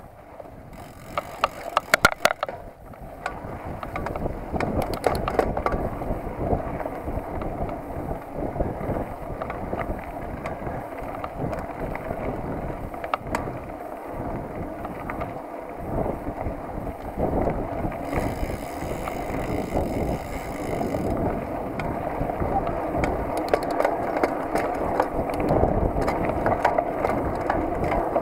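Mountain bike rolling over a dirt singletrack: a steady rumble of tyres on the trail, with rattling from the bike and wind on the microphone. A cluster of sharp clatters comes about two seconds in, and the rumble grows louder over the first few seconds.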